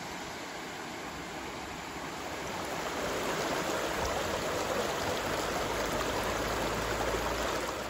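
Shallow, rocky creek running: a steady rush of flowing water that grows a little louder about three seconds in.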